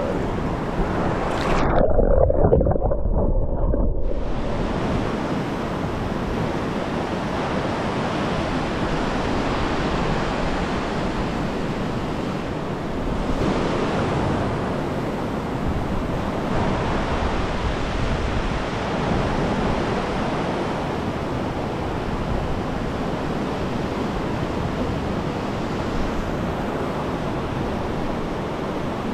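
Fast river rushing through whitewater rapids around boulders, a steady wash of water noise. For about two seconds near the start the sound turns muffled and heavier, losing its hiss.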